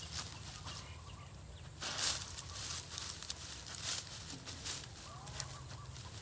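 Dry twigs and leaves rustling and crackling as a Thai ridgeback noses and digs into a brush pile, hunting by instinct, with a louder crackle about two seconds in.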